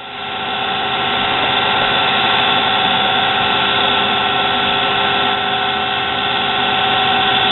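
Small motor of a nano lathe-drill press spinning up over about a second, then running steadily with a constant whine and hiss.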